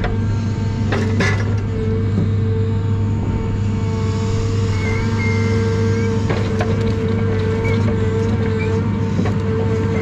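John Deere 1010G forwarder's diesel engine running steadily under hydraulic load while the loader crane swings out, with a few knocks and clunks from the crane and a brief high hydraulic whine about five seconds in.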